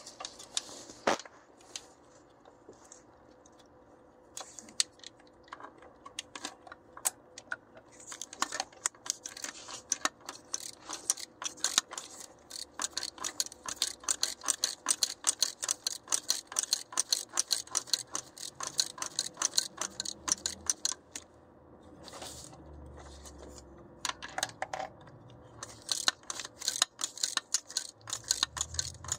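Hand ratchet wrench clicking in long runs of rapid clicks, with a few sharp metal tool clinks and short pauses between the runs.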